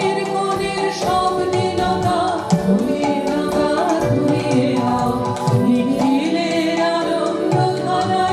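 Live group singing accompanied by harmonium and tabla: several voices carry a melody over the harmonium's steady held notes, with tabla strokes keeping time.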